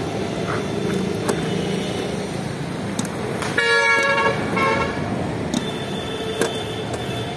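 A car horn honks twice near the middle, a longer honk then a short one, over steady street noise. A few sharp clicks come from a long-handled hand riveter fixing a high-security number plate to a car's front bumper.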